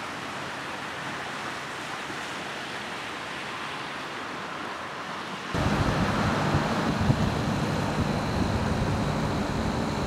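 Outdoor ambience: a steady, even hiss, then about five and a half seconds in a sudden cut to louder wind rumbling on the microphone, with a faint steady high whine underneath.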